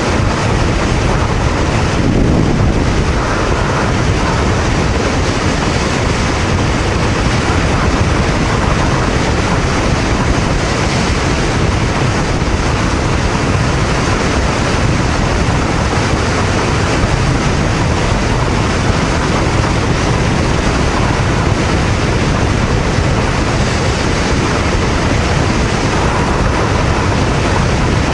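Riding noise of a Honda VTR250 motorcycle cruising at about 110–115 km/h on an expressway: a steady, loud rush of wind over the microphone with road noise, unchanging throughout.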